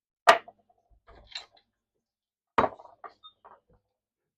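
Metal parts handled on a wooden workbench. There are two sharp knocks, about a quarter second and two and a half seconds in, each followed by a few lighter clinks, as lug nuts and the thread chaser are picked up and set down.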